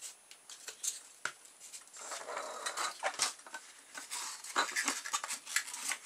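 Hands handling a small plastic USB vacuum cleaner body and pieces of polystyrene foam: an irregular run of small clicks, taps and scratchy rustles.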